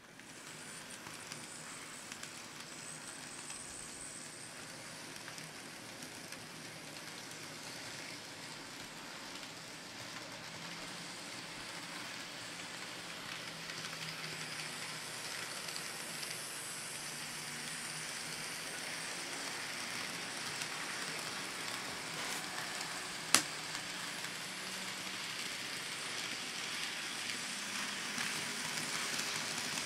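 N scale model coal train running on its track: a steady hiss of small wheels and cars rolling over the rails that starts suddenly and grows slowly louder as the train comes back around. A single sharp click sounds a little over twenty seconds in.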